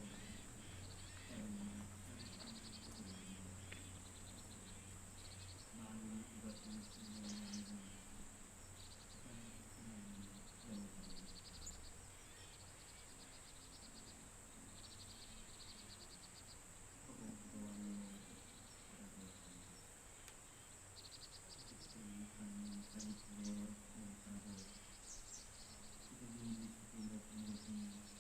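Faint autumn insect chorus: crickets chirping in short pulsed trills over a steady high-pitched drone. At intervals a low, distant voice chants a Buddhist prayer in short phrases.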